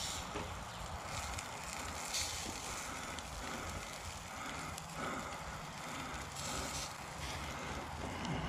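Steaks sizzling on the grate of a small charcoal grill over hot coals, a steady sizzle with a few faint clicks.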